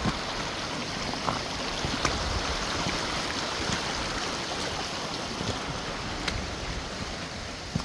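Creek water running steadily, with a few faint clicks over it.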